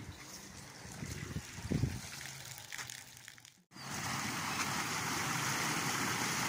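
Muddy rainwater gushing steadily out of a narrow concrete channel into a street drain. It starts abruptly a little past halfway and is preceded by a few faint knocks.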